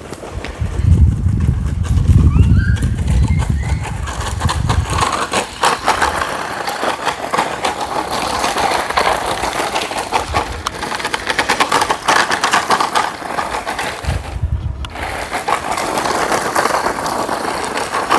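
DEERC 9308E 1:16 electric RC monster truck being driven at speed: the motor and drivetrain running with a dense crackle, cutting out briefly near the end. A low rumble fills the first few seconds.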